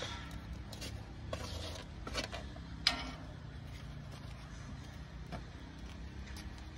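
Cooking handling sounds at a gas grill: a few short clicks and knocks of utensils and a plastic container against the pan, the loudest about three seconds in, over a steady low rumble.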